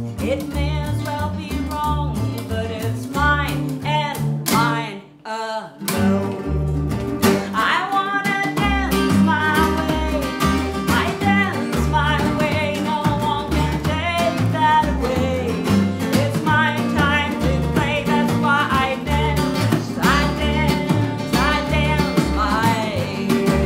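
Small acoustic band playing a song: a woman singing over acoustic guitar, electric guitar, upright bass and drums. The band stops dead for about a second near five seconds in, then comes back in together.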